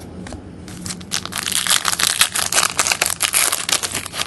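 A trading card pack wrapper being torn open and crinkled: a dense run of crackling that starts about a second in.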